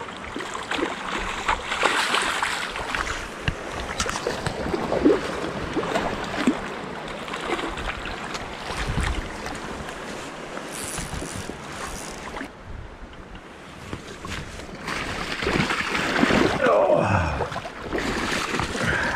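Shallow creek water splashing and sloshing as a wader moves through it, louder in the last few seconds.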